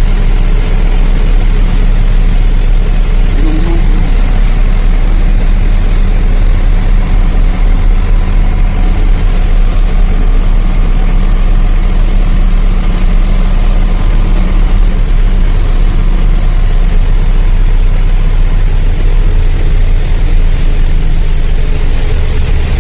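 Truck's diesel engine running with a steady, loud low drone.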